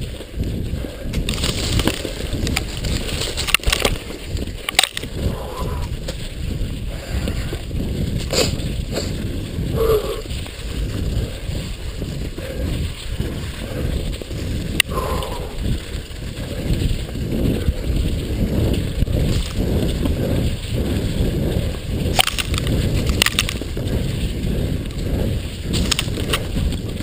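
Mountain bike riding fast over a snowy trail, heard from a camera mounted on the rider or the bike: a steady, uneven low rumble of wind on the microphone and tyres rolling over snow and roots, broken by several sharp knocks and rattles from bumps.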